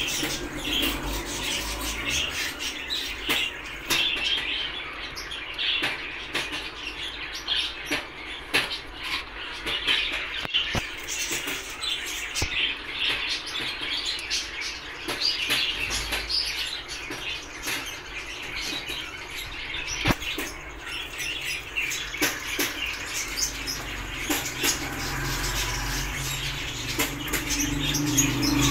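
Pigeon loft ambience: a busy chatter of short bird chirps with many scattered sharp clicks and, now and then, a flutter of wings.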